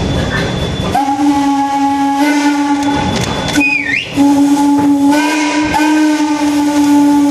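Steam locomotive whistle blowing long, steady blasts: it starts about a second in, breaks briefly a little past the middle, and comes back slightly higher in pitch.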